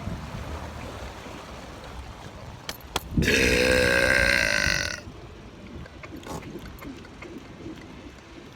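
A loud, drawn-out burp lasting about two seconds, starting about three seconds in, just after two short clicks, over the steady noise of the moving boat.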